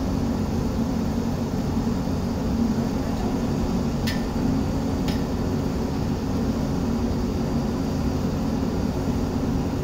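Hyundai excavator's diesel engine running steadily, a low drone, with two short clicks about a second apart near the middle.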